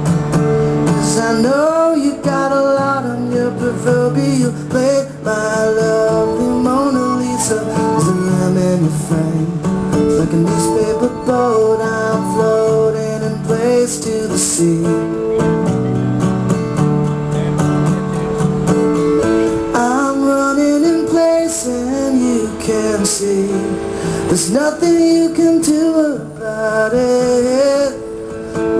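Live acoustic guitar music built up with a looper: layered strummed chords and plucked melody lines on a Martin D-16GT acoustic guitar, with a male voice singing over them.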